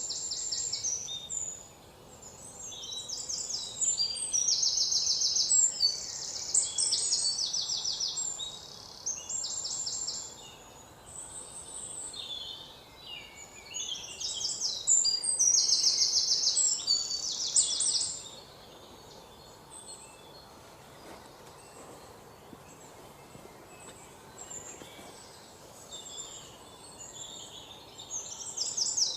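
Songbirds singing, with bouts of rapid, high trills and quieter chirping between them.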